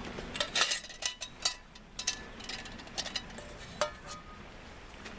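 Metal camp cookware and utensils clinking and rattling as a cook kit is handled and packed up: a string of sharp clinks, several of them ringing briefly.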